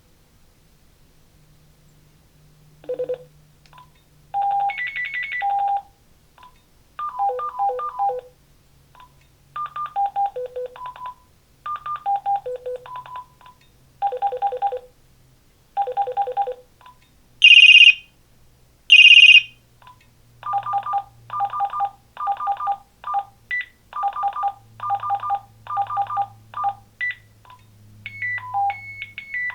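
Uniden TCX 905 cordless phone handset playing its built-in electronic ringtones, one after another: short beeping melodies in phrases with gaps between them. Near the middle come two brighter, high-pitched trilling rings, then a quicker run of repeated notes.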